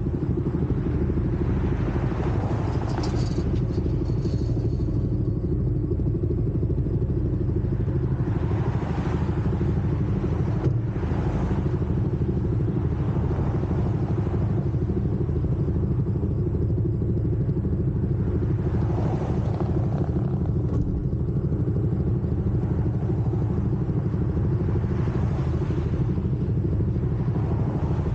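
CFMoto 300SS single-cylinder engine idling steadily at a standstill, while cars pass close by several times in swells of tyre and engine noise.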